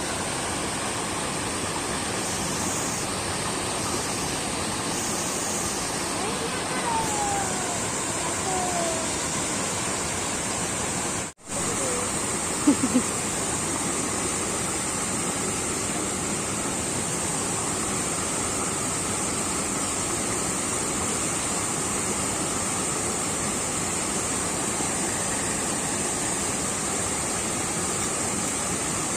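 Steady rushing of flowing water, like a forest stream or small waterfall, with a thin steady high hiss over it. The sound cuts out for an instant about eleven seconds in, and a few sharp clicks follow soon after.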